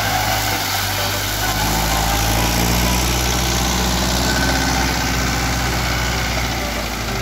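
Fendt 108 S tractor's diesel engine running steadily under load while its rear-mounted Talex mower cuts tall grass, the engine's pitch rising slightly a couple of seconds in.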